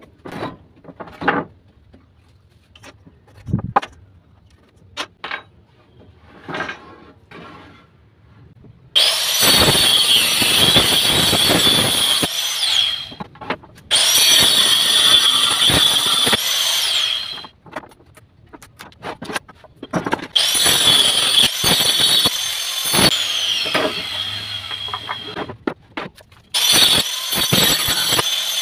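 Wooden boards knocking as they are handled, then a hand-held power saw with a toothed circular blade cutting wood in four bursts, its high whine dropping in pitch as the blade winds down after some cuts.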